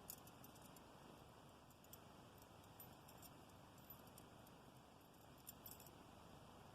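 Near silence with scattered faint clicks and clinks of a metal wire puzzle being turned in the hands, a small cluster of them just past five seconds in.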